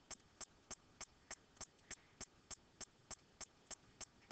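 Faint, very even ticking, about three ticks a second, in near silence.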